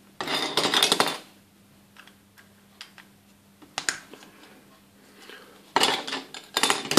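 Small hard plastic Playmobil bed parts clattering and clicking as they are handled on a table and plugged together by hand. A burst of clatter comes at the start, a few single clicks follow, and two more bursts come near the end.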